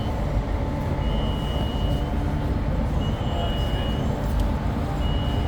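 Madrid Metro train heard from inside the carriage: a steady low rumble, with a high electronic beep repeating about every two seconds, each beep a little over half a second long.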